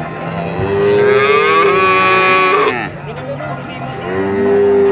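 Cattle mooing: one long drawn-out moo from about half a second in to nearly three seconds, then a second long moo starting near the end.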